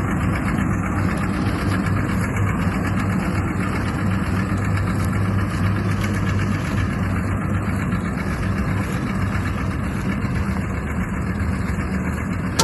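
Steyr Kompakt compact tractor's diesel engine running steadily at an even speed.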